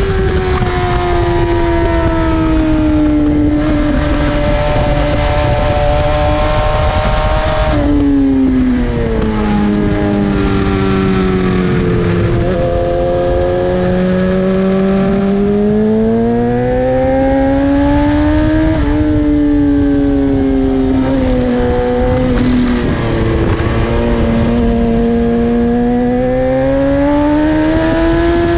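BMW S1000RR's inline-four engine at track pace: the note falls off under braking and climbs again on the throttle several times, with a sudden step in pitch about eight seconds in as it changes gear. Wind rushes under the engine throughout.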